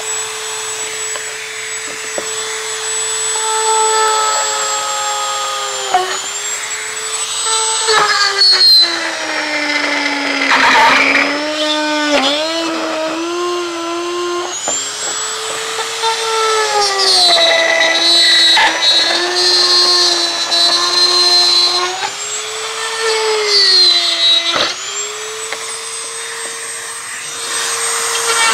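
Handheld rotary tool spinning a cutting bit through a plastic kick panel, a steady high motor whine. The pitch sags several times as the bit bites into the plastic, most deeply in the middle, and climbs back as the load eases.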